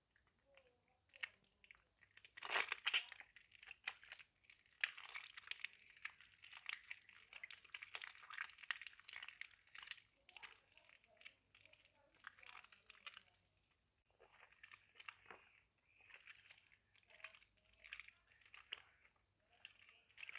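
Hands squeezing and crushing soaked, softened soap in a bowl: wet, crackly squishes in quick, irregular strokes, loudest about two to three seconds in.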